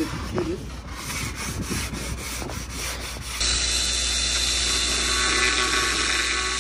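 A cordless power tool working into the edge of a large tile slab: a steady, gritty, high-pitched grinding that starts suddenly about three and a half seconds in. Before it, quieter handling of the slab with a few light knocks.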